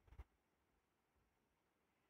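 Near silence: faint room tone, with one brief faint sound at the very start.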